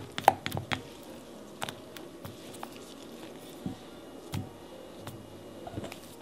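Kitchen prep sounds while steamed-bun dough is made by hand: a scatter of light knocks and clicks, the loudest about a third of a second in, with soft squishing in between.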